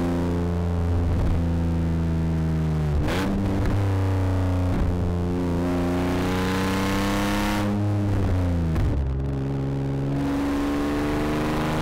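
Rally car engine running hard under load, its pitch rising and falling with sharp drops about three, five and nine seconds in, like lifts or gear changes.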